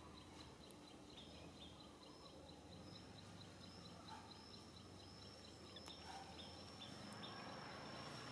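Quiet outdoor ambience. A faint, quick series of high ticks runs through it, and a thin, steady high-pitched whine joins a few seconds in and holds.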